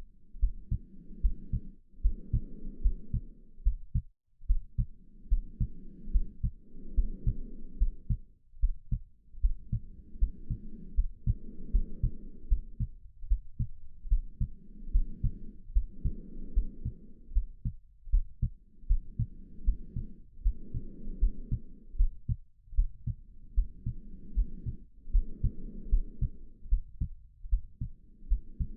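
A steady heartbeat of low, evenly spaced thumps under slow human breathing. Each breath is a soft in-and-out pair that returns about every four to five seconds.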